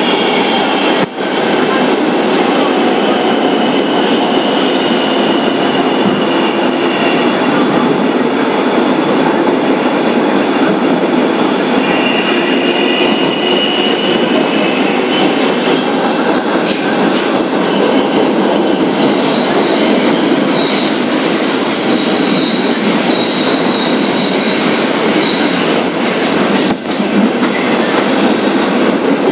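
New York City Transit R-143 subway car (Kawasaki, 2001) running along the rails with Bombardier MITRAC traction motors, a steady loud rumble under high-pitched motor whine. The whine falls in pitch over the first several seconds and rises again about twelve seconds in. Later several steady high tones sit together. The noise briefly drops about a second in and near the end.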